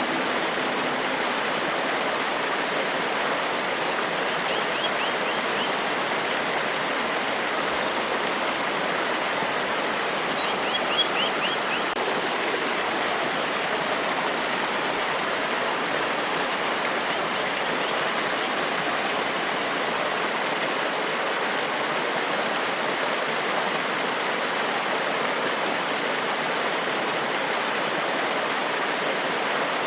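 Waterfall and stream water cascading over rocks in a steady, unbroken rush, with a bird's short high chirping trills now and then.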